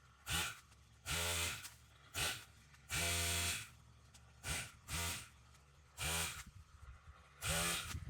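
Gas-powered Stihl saw engine revved in about eight short throttle bursts, each rising and falling in pitch, with the engine dropping back to idle in between.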